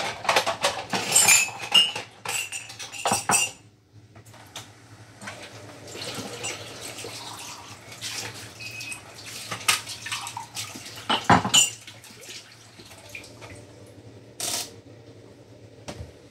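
A spatula clatters and scrapes against a wok while food is stir-fried, with a steady sizzle underneath. The clattering is busiest in the first few seconds and comes back about eleven seconds in.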